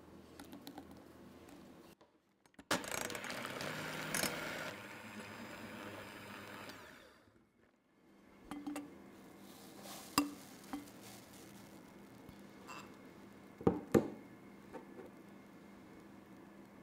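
Electric hand mixer whisking egg-yolk batter in a glass bowl for about four seconds, then winding down. Afterwards come a few sharp knocks of utensils, with the loudest pair near the end.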